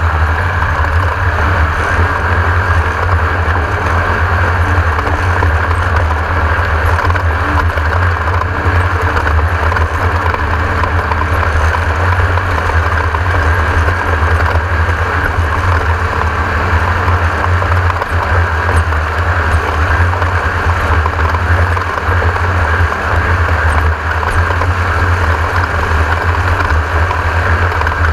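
Class 1600 off-road race car's air-cooled Volkswagen flat-four running steadily under way, a constant loud engine drone over a heavy low rumble.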